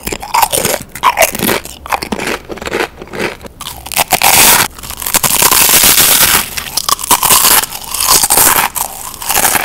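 Crisp chips, Pringles potato crisps among them, bitten and chewed close to the microphone: loud, rapid crunching and crackling, with the longest, densest crunches around the middle.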